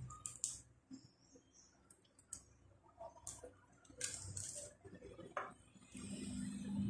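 Faint clicks and short scrapes of a pizza cutter wheel rolling through a sheet of dough on a parchment-lined metal baking tray. A low steady hum comes in near the end.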